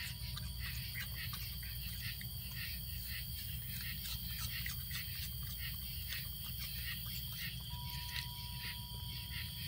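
Night insects trilling steadily, with a raccoon's close, irregular chewing and smacking as it eats pieces of fruit.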